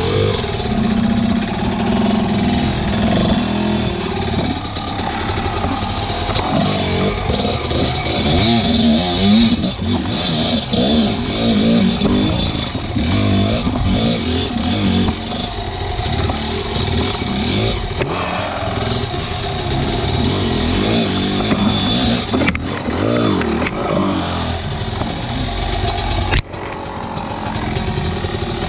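Enduro dirt bike engine revving up and down again and again while riding a rough off-road trail.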